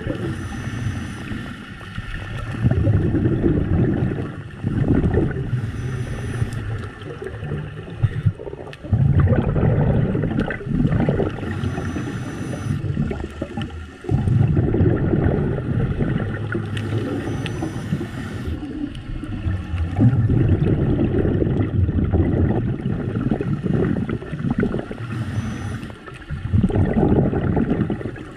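Scuba diver breathing through a regulator underwater: a short hiss on each inhale, then a longer rush of exhaust bubbles on the exhale. The cycle repeats about every five to six seconds.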